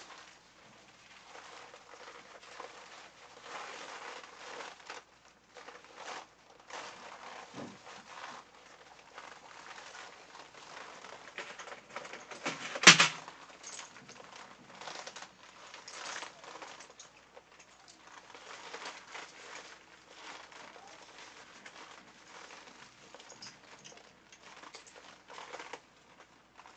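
Rustling and crinkling of stiff PVC and sauna-suit fabric as the wearer moves and handles the outfit, with one sharp snap about halfway through.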